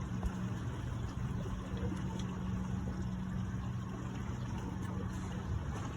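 A boat's motor running steadily, a constant low hum under a wash of broad noise.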